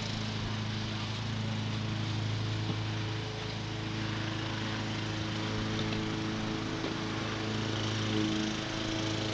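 A small engine running steadily in the background, an even hum that does not change in pitch or level.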